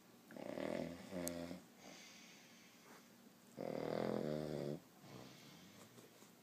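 A man snoring: two snores about three seconds apart, the first broken into two parts and the second a single, slightly louder one.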